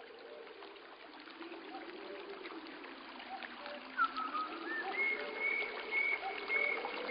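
Soundtrack of trickling, flowing water with slow gliding low tones and short recurring chirps; about four seconds in, a held higher whistling tone comes in and grows louder.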